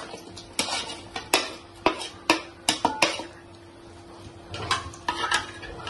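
A spoon knocking and scraping against a plate and an aluminium cooking pot as chopped onion is pushed off the plate into the pot: about eight sharp clicks in the first three seconds, then a few more near the end, with a faint steady hum underneath.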